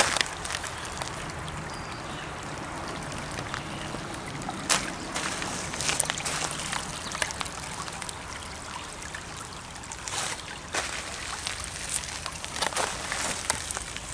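Water trickling steadily, with a few sharp clicks or snaps.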